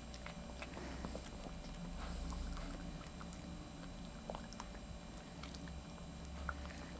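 Maltese dog gnawing a hard dog chew: faint, scattered clicks and small crunches of teeth on the chew.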